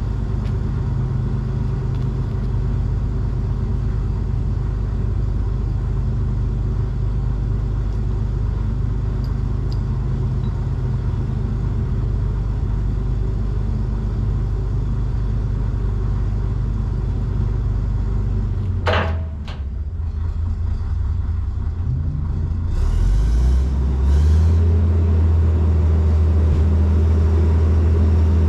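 Cat D6 bulldozer's diesel engine running steadily. About two-thirds of the way through there is a short sharp squeak or clank, and the engine briefly drops away. It then revs back up in steps and runs louder to the end.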